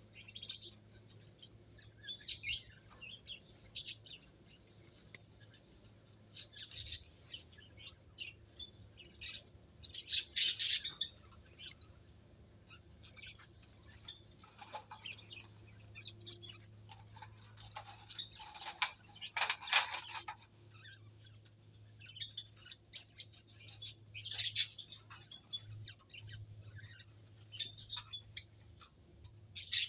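Small aviary birds chirping and twittering in short, scattered calls, with two louder bursts about a third and two-thirds of the way through, over a steady low hum.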